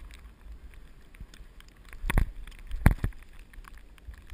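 Dog sled running over packed snow: a steady low rumble of runners and wind, broken by two sharp knocks about two and three seconds in as the sled jolts.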